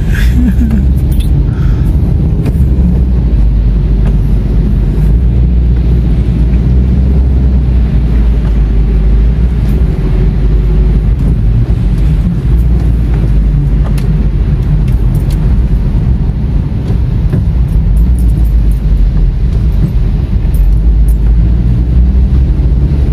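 Steady low rumble inside a moving car's cabin: the engine and tyres running on a rain-wet road, with a few faint ticks.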